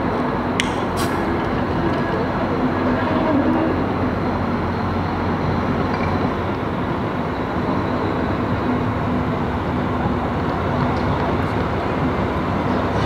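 Train running past at close range: a steady rumble with a low engine hum, and two sharp clicks about a second in.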